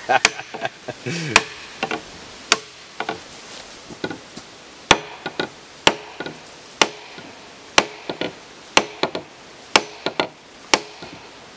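Steel claw hammer striking the end of a wooden dowel, driving the peg into a drilled hole through a log joint. Sharp blows come about once a second, with lighter taps in between.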